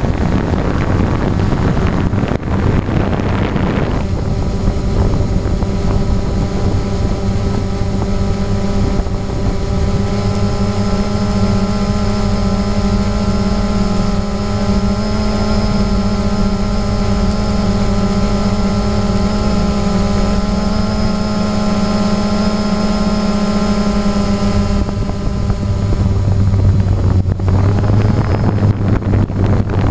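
DJI Phantom quadcopter's motors and propellers buzzing in flight, picked up by the camera it carries, with wind rushing over the microphone. About four seconds in the sound settles into a steady hum with a clear pitch, which gives way to rougher rushing near the end.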